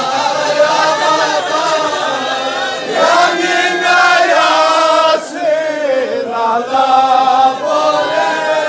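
Many men's voices chanting a Balti noha, a Shia lament, together on a sung melody.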